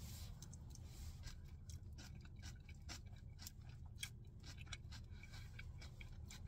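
Faint chewing of a mouthful of coleslaw: irregular small crunches and mouth clicks over a steady low hum.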